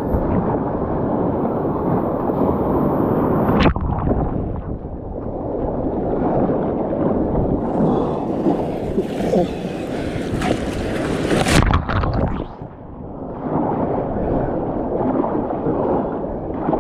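Water rushing and sloshing around a sit-on-top kayak as it is paddled out through breaking surf. There is a sharp knock about four seconds in, and a louder hissing rush from about halfway through that stops abruptly.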